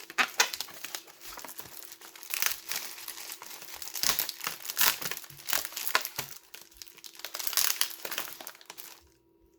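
Transport packaging being crinkled and pulled at by hand, a dense irregular crackling with sharp rustles, over a faint steady hum; the crackling stops shortly before the end.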